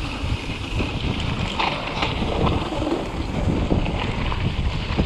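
Wind rumbling on a GoPro's microphone as a hardtail mountain bike rolls downhill, with tyre noise and many short knocks and rattles from the bike over rough ground.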